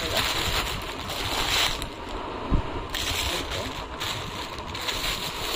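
Plastic packaging crinkling and rustling as clothes are handled and unwrapped, with a single bump about two and a half seconds in.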